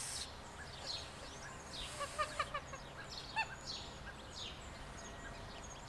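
Goslings peeping, with a quick run of short peeps about two seconds in and another a second later, while small birds chirp throughout at a higher pitch.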